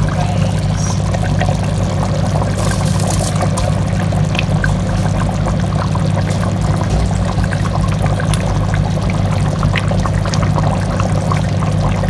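A pot of chicken curry sauce and water boiling hard on the stove, a steady bubbling over a constant low burner noise, with scattered light clicks.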